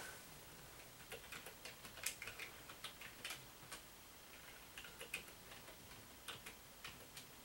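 Faint, irregular key clicks of a computer keyboard being typed on in short runs.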